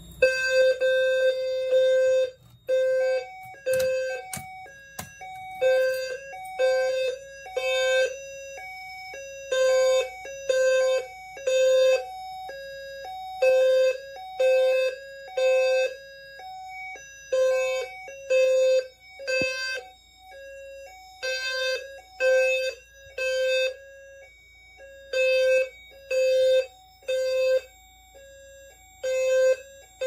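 System Sensor low-frequency horn-strobes sounding the temporal code-3 fire evacuation signal: a low horn tone beeping three times, then a pause, repeating about every four seconds. The system is in alarm from a pulled manual pull station. A fainter, higher tone sounds between the beeps, and there are a few clicks in the first seconds.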